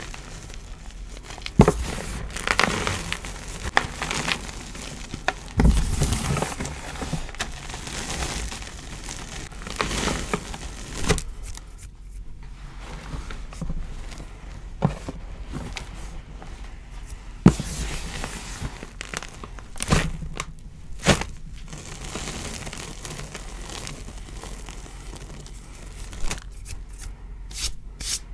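Hands crushing, squeezing and rubbing dyed gym chalk powder in a tray: soft powdery crunches and rustles at irregular moments, with a few sharper crunches and a quicker run of small crackles near the end.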